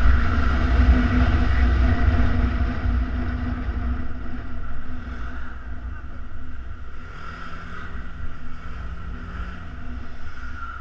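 Yamaha Xenter 150cc scooter's single-cylinder engine running under way, with heavy wind rumble on a helmet-mounted camera. Both grow quieter through the second half.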